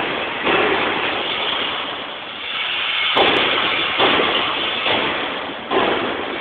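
Loud, rough workshop noise: a dense hiss that jumps up abruptly several times and fades between the jumps.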